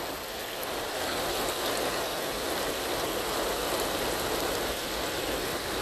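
Steady rushing noise of heavy rain and floodwater flowing fast down a street.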